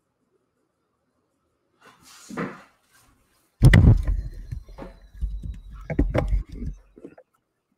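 A series of knocks and thumps with rustling, starting after about two seconds of silence and loudest from about halfway in.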